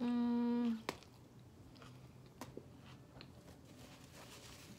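A short, steady closed-mouth 'mmm' hum, held for under a second as she bites into a sandwich. Then quiet chewing with faint scattered clicks and smacks of the mouth.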